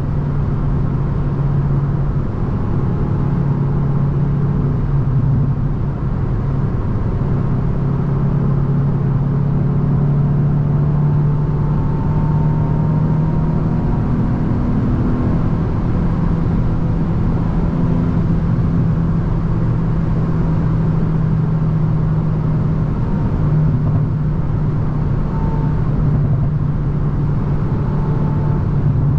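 Hyundai i20 N's turbocharged 1.6-litre four-cylinder engine pulling at a steady speed on the motorway, its drone holding a nearly constant pitch over road and tyre noise.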